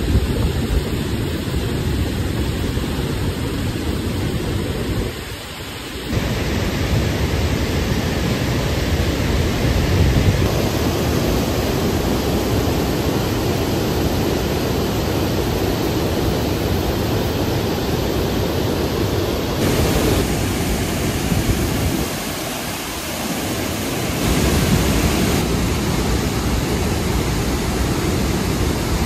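Water rushing out through an open dam gate in a heavy flow as silt and debris are flushed from the reservoir: a steady, loud rushing noise that dips briefly about five seconds in and again around 22 seconds.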